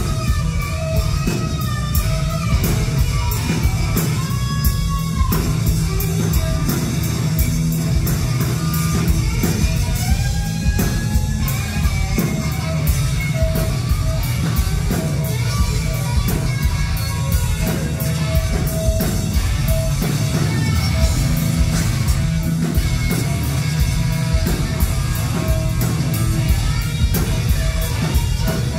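Live rock band playing loud: electric guitar lead lines through Marshall amplifiers over bass guitar and a drum kit, heard from within the crowd.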